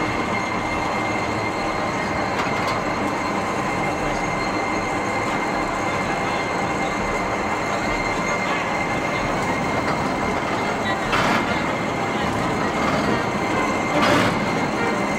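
A 1954 John Boyd & Co locomotive turntable turning, with a steady mechanical hum of several pitches from its drive and running gear. Two sharp knocks come in the last few seconds.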